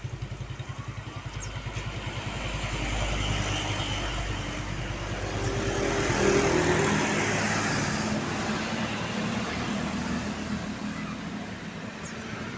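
A road vehicle's engine passing on a hill: an evenly pulsing low rumble at first, then a swell that peaks about six seconds in with a low engine drone, and a slow fade.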